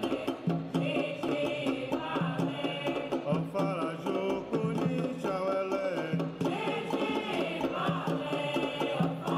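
Sacred Candomblé music: singing over drumming.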